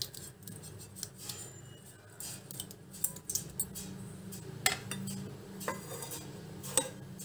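Kitchen utensils clinking and tapping against a stainless-steel bowl, in scattered light clicks with a few sharper ones in the second half, over a faint steady low hum.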